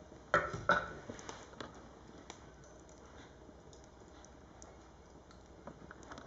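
Firewood burning in an open fireplace, crackling: two loud pops close together near the start, then scattered small ticks.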